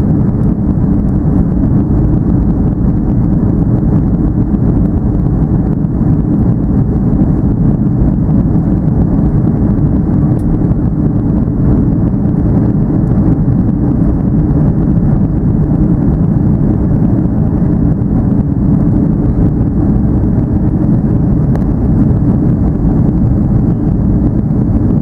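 Steady low rumble of an Airbus A330-200 airliner in flight, heard from inside the passenger cabin: engine and airflow noise at an even level.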